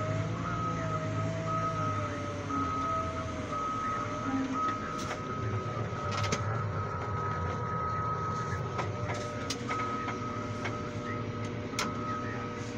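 Caterpillar 950M wheel loader's diesel engine running, heard from inside the cab. A high steady beep repeats over it in short, regular dashes for most of the stretch, typical of the loader's reverse alarm. A few sharp clicks come from handling in the cab.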